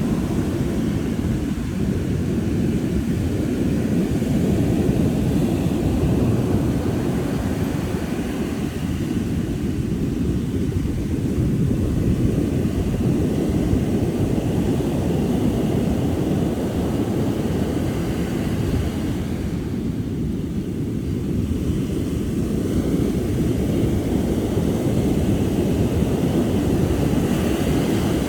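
Ocean surf rolling onto a beach: a steady low rush of breaking waves that swells and eases every few seconds.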